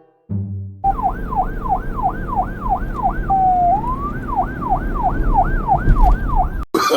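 Electronic police siren in a fast yelp, its pitch sweeping up and down about three to four times a second. Near the middle it drops briefly into a short steady tone and a slower rising wail, then the fast yelp resumes until it cuts off abruptly near the end. A low rumble of background noise runs under it.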